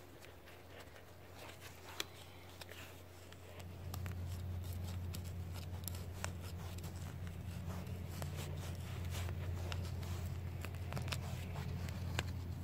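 Gloved hands digging and scraping through loose, dry garden soil, with many small scratches, crackles and clicks as soil crumbs and fine roots are pushed aside. A low steady rumble comes in about four seconds in.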